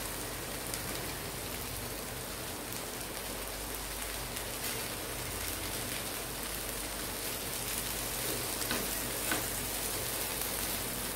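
Cluster beans frying in oil in a pan, a steady light sizzle with faint crackles; a few louder scrapes of stirring near the end.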